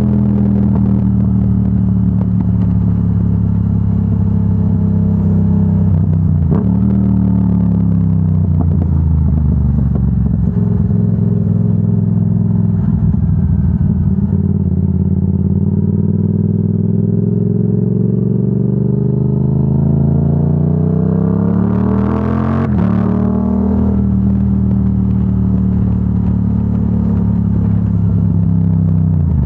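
Yamaha R7's 689 cc parallel-twin engine through a Yoshimura AT2 full exhaust, heard from the rider's helmet. The engine note falls off through the middle, then climbs in one long rising pull to an upshift about 22 seconds in, marked by a sharp crack and a drop in pitch. It shifts once more near the end.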